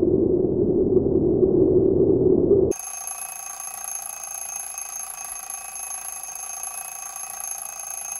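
Soundtrack sound design: a loud, low rushing drone swells and then cuts off abruptly about three seconds in. It is replaced by a quieter, steady, high electronic tone made of several pitches held together.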